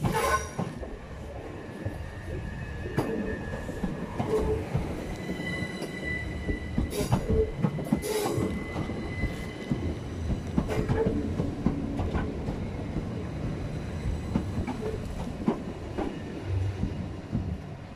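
Southern Class 377 Electrostar electric multiple unit passing close along the platform: a continuous rumble of wheels on rail with sharp clicks over the rail joints, and a high thin squeal held for several seconds in the middle.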